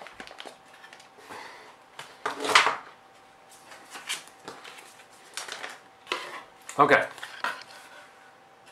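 Hands handling dashcam accessories and packaging on a wooden table: scattered light clicks, taps and rustles as bagged parts and small pads are picked up and set down, with one louder, longer handling noise about two and a half seconds in.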